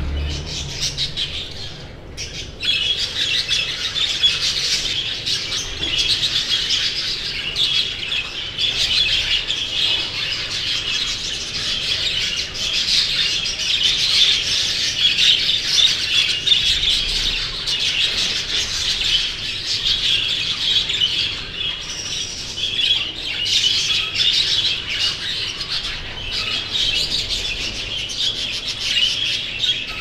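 A flock of exhibition budgerigars chattering together: a dense, continuous mix of chirps, warbles and squawks from many birds at once, with a brief lull about two seconds in.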